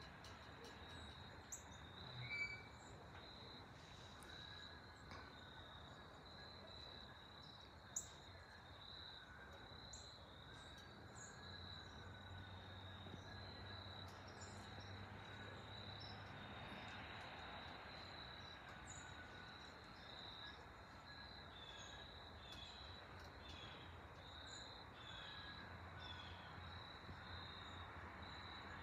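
Near-silent outdoor ambience: scattered short bird chirps and a few calls over a steady, faint high-pitched tone.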